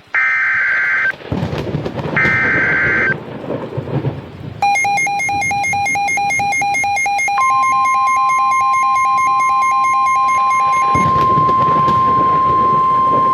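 Two short bursts of screeching digital EAS/SAME data tones, the end-of-message code closing a weather-radio warning, with a thunderstorm rumble underneath. About four and a half seconds in, a rapidly pulsing electronic alarm tone starts. A few seconds later the steady NOAA Weather Radio warning alarm tone joins it, and the alarm tone carries on alone after the pulsing stops near the end, again over rumbling thunder.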